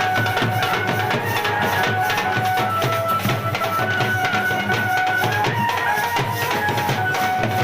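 Music with fast, dense drum beats under a melody of held notes that step from pitch to pitch.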